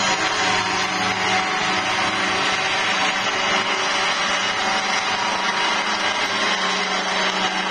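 Large radio-controlled crop-spraying helicopter running steadily, its engine and rotors making an even, buzzing drone with no break.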